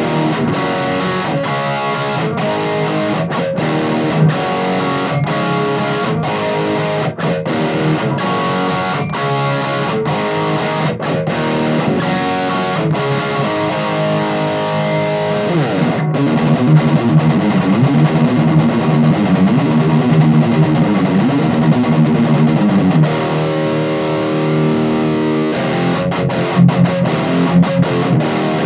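Distorted electric guitar riffs from a Fender Stratocaster with a Seymour Duncan Distortion bridge pickup, played straight into a Mesa Boogie Badlander 25 amp head with the gain high and no effects, through a Mesa closed-back speaker cabinet. Chugged, rhythmic chords give way about halfway through to a riff with sliding, bending notes, and the chugging returns near the end.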